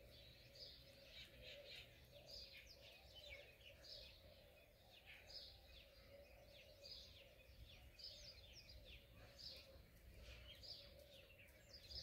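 Faint chirping of small birds: short, quick calls repeating several times a second throughout, over a faint steady hum.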